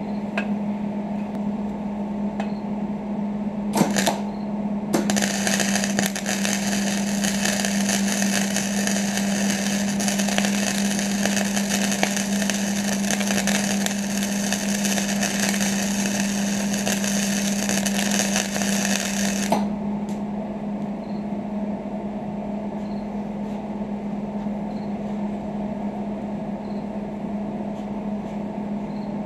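Electric arc welding on steel: a short tack about four seconds in, then a continuous crackling sizzle for about fifteen seconds that cuts off abruptly, over a steady low hum.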